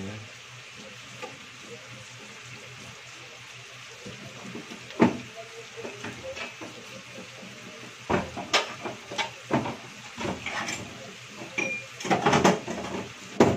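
Pork cubes sizzling steadily in a frying pan, with a series of sharp knocks and clatters of kitchenware being handled, mostly in the second half.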